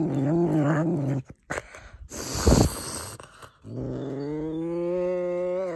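A serval growling over a chunk of raw meat it is eating, guarding its food. A wavering, moaning growl breaks off about a second in, then comes a loud sharp hiss, then a long, steady growl that rises slightly in pitch.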